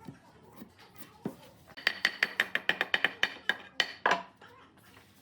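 A rapid run of sharp ringing taps, about six a second, on a hard object, starting about two seconds in and ending with a heavier knock just after four seconds.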